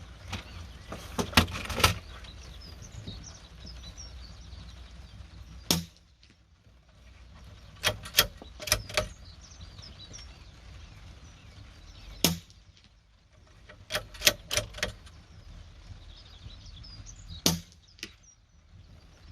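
JW15 bolt-action .22 LR rifle fired through a homemade monocore suppressor with a carbon fibre tube: a series of short, sharp cracks, pretty quiet for a gunshot, in small clusters with the clicks of the bolt being worked between shots.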